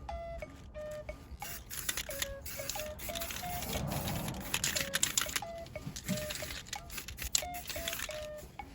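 Light background music of short, bright pitched notes in a bouncing melody, over an uneven rasping noise.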